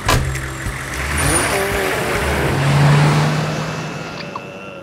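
A cartoon taxi's door slams shut, then its engine revs and the taxi drives off, the sound swelling and then fading away.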